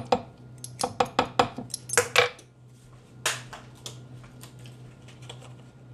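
A metal spoon clinking against a clear blender cup in a quick run of taps, loudest about two seconds in, as sriracha is knocked off it. One more knock comes about three seconds in, then a few faint ticks.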